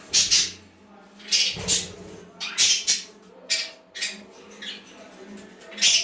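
Pet budgerigars giving short, harsh squawks and chirps, about ten in quick succession, some coming in close pairs.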